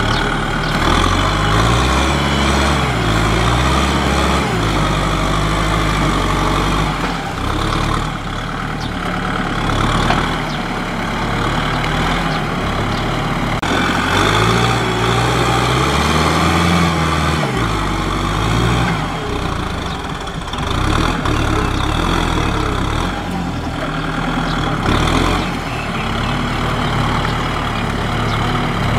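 Kubota M6040SU tractor's four-cylinder diesel engine running under load as it pushes mud with its front blade, its pitch rising and falling again and again as the engine works. The wheels churn through the wet paddy mud.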